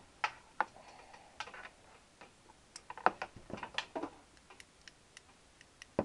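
Scattered light clicks and taps, irregular and sometimes in quick clusters, from a hand handling an open Zippo lighter.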